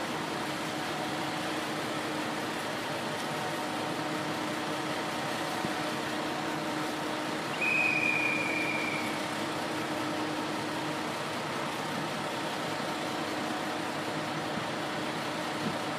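Standing KTR 8000 series diesel railcar idling, a steady engine hum with a low drone. About halfway through, one high whistle sounds for about a second and a half, falling slightly in pitch.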